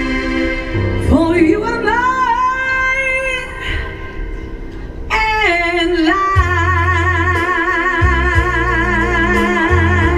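A woman singing with keyboard accompaniment. Her voice glides up into a phrase about a second in, and from about five seconds she holds a long note with a wide vibrato over sustained keyboard chords and bass.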